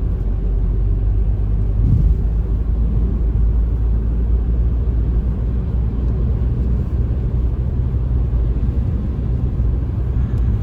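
Steady low rumble of a car's engine and tyres heard from inside the cabin while driving, with a brief louder thump about two seconds in.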